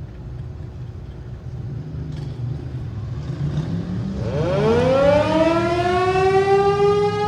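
American Signal Corporation T-128 electromechanical siren winding up. After a low rumble, its single tone comes in about four seconds in, rises quickly in pitch and levels off into a steady wail.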